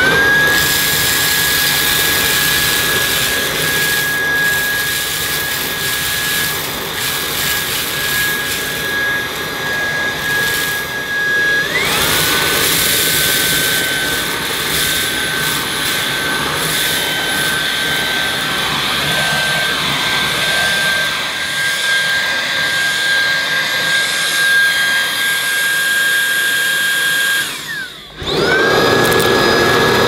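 Roidmi R10 cordless stick vacuum's motor running with a steady high whine as the crevice tool sucks up a pile of grit and debris from carpet, the debris crackling through the nozzle. About twelve seconds in the whine briefly glides and settles a little lower, and near the end the sound drops out briefly before the whine rises again as the motor spins back up.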